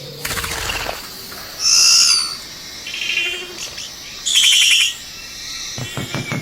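Male Vogelkop bowerbird singing to a female from his bower. There are two loud calls, one about one and a half seconds in and one about four seconds in, the second a fast rattling burst, with quieter notes between them.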